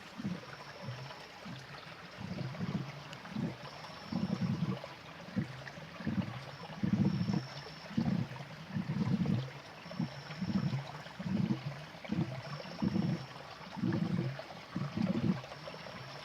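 Geothermal vent in a field of hot springs and fumaroles gurgling and bubbling, low irregular gulps about once a second over a steady hiss; it sounds like a big cat eating.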